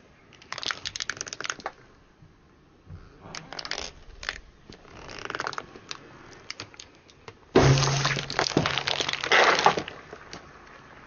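Hard plastic candy tube crackling and then crunching loudly as a car tyre rolls onto it and flattens it, with the loudest crunching in a burst about two seconds long, roughly three-quarters of the way through.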